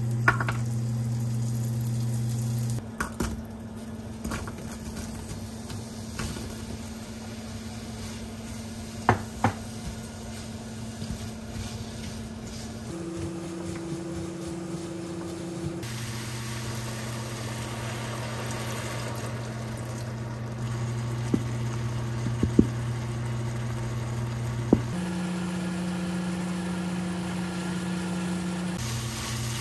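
Diced apples cooking in a ceramic frying pan on an induction hob: a steady low hum from the hob under a faint sizzle, with a few sharp taps and clicks of a spatula against the pan.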